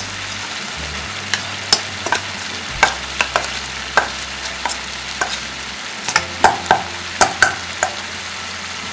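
Metal potato masher knocking and scraping against a steel bowl as boiled chickpeas are mashed, in irregular knocks with a quicker run about two-thirds of the way through, over a steady frying sizzle.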